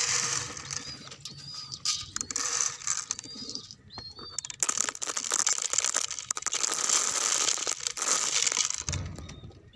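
Grain rattling and hissing as it is scooped by hand from a steel bowl and scattered onto gravel, with a denser, steady pour from about halfway through until near the end. A few short high chirps sound in the first half.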